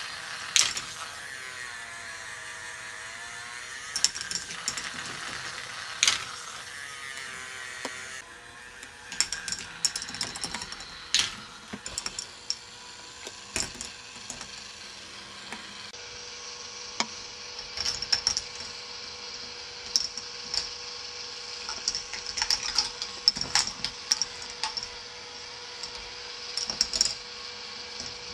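K'nex ball machine running: a steady motor hum under irregular clicks and clacks as plastic balls roll and drop along the tracks.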